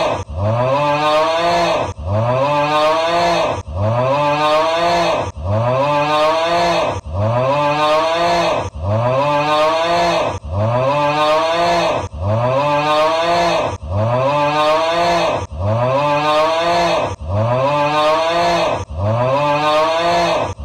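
Looped meme snoring sound effect: an exaggerated snore that rises in pitch, repeated identically about every 1.7 seconds.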